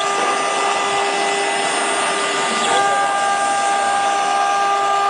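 CNC stone engraver's spindle running at steady speed, a constant whine over a grinding hiss as its bit cuts a relief into a stone slab.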